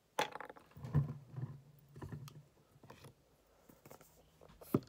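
Handling noises on a tabletop: irregular light clicks and knocks of plastic spray bottles and a small cardboard product box being moved and picked up, with a sharper knock about a second in and another near the end.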